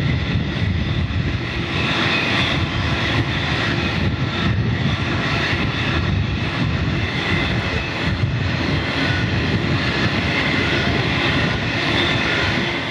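Long train of coal hopper wagons rolling past on steel rails: a steady, loud roar of wheels on track with faint thin high tones over it. It cuts off suddenly at the end.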